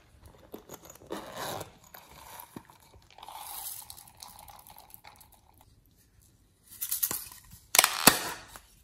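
Small plastic cases handled and emptied over a bowl of slime: scattered rustles and crackles, a steady scraping hiss a few seconds in, and a louder clatter of plastic about seven to eight seconds in.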